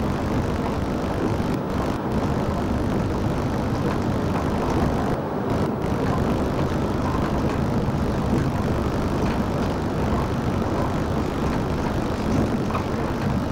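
Steady engine and road noise heard inside a coach cruising along a highway.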